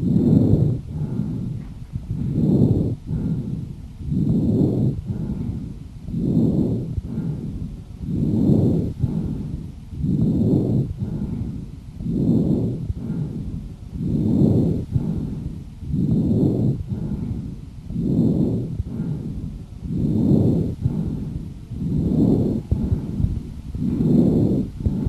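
Chest breath sounds recorded through a stethoscope: harsh breathing, rising and falling in a steady rhythm about once every two seconds, with the in-breath as loud as the out-breath. A sign of inflammation in the bronchial tree, confirming acute bronchitis.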